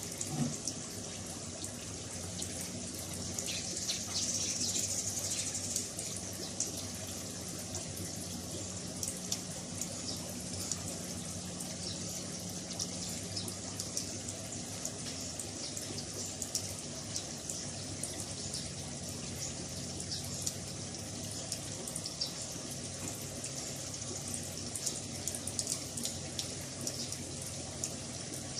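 Aquarium water running and splashing steadily: a hiss of falling water with small dripping ticks, over a low steady hum from a pump.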